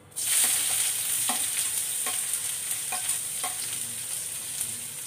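Chopped onion, garlic and green chilli hitting hot mustard oil in a kadhai, starting a loud sizzle at once that slowly eases off. A spoon clicks against the pan a few times.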